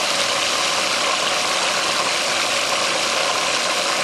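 Food processor motor running steadily, blending thick pumpkin and tofu pie filling.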